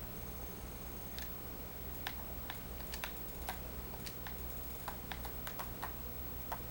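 Scattered, irregular light clicks, like keys being typed, over a steady low hum: someone tapping on a device to get music playing.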